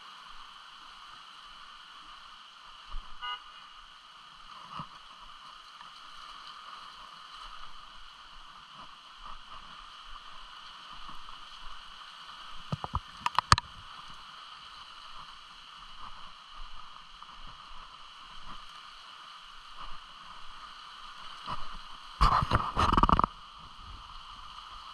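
Steady outdoor hiss with a few sharp knocks about halfway through and a louder cluster of knocks and rubbing near the end.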